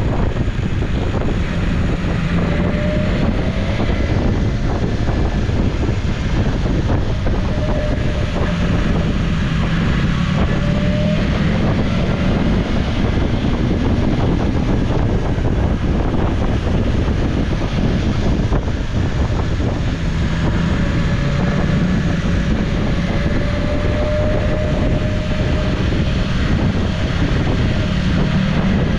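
BMW S1000XR's inline-four engine running while riding, its pitch drifting gently up and down with small changes in throttle, under steady wind rush on the onboard camera's microphone.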